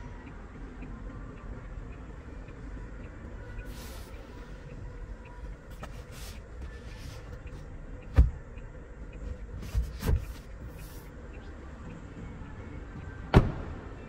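Handling knocks in the rear cabin of an Isuzu D-Max double cab over a steady low hum. The first sharp knock, about eight seconds in, comes as the leather rear-seat centre armrest is pulled down. Two lighter knocks follow a second or two later, and a louder sharp knock comes near the end.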